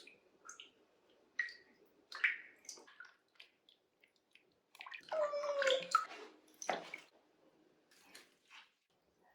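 Bathwater splashing and dripping in a tub with a cat in it, in short irregular splashes. The busiest stretch comes about five seconds in and carries a brief pitched sound.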